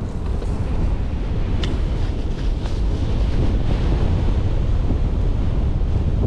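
Wind buffeting a GoPro action camera's microphone while riding an e-bike off-road: a loud, steady low rumble, with a couple of sharp ticks about one and a half and two and a half seconds in.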